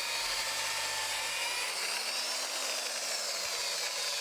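A small electric motor whirring steadily with a hiss of air, its pitch drifting slowly up and then back down.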